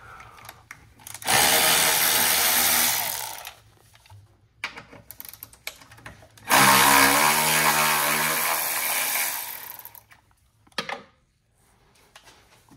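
Milwaukee M12 1/4-inch cordless ratchet running in two separate bursts of about two and three seconds, backing out the two bolts that hold the coolant reservoir. A few light clicks of tool handling come between and after the runs.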